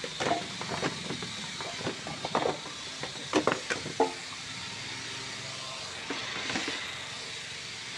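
Scattered knocks and clanks as the radiator and fan shroud are handled and pulled out of an engine bay, about half a dozen in the first half, followed by a steady background hiss.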